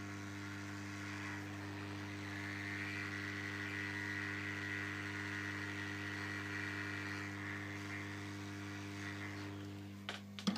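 Hot air rework station's blower running steadily, a hum with a hiss of air, while it heats a phone microphone's solder joints. The air hiss grows stronger through the middle and eases off near the end as the nozzle is taken away.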